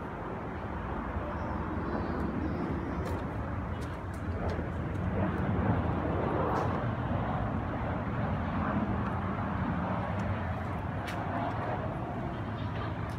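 Steady outdoor background noise, a low rumbling hiss, with a few faint clicks.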